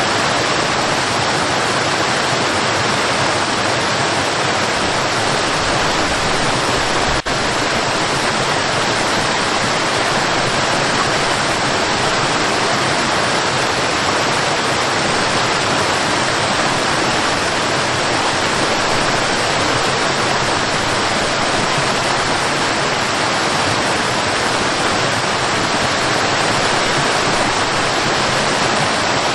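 Waterfall: a steady, even rush of falling water, with one faint click about seven seconds in.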